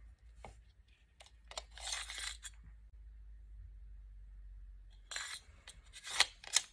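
Steel 8-round pistol magazine being lifted from the case's foam and handled: a few light metallic clicks and scrapes, a brief rustle about two seconds in, and a cluster of clinks near the end.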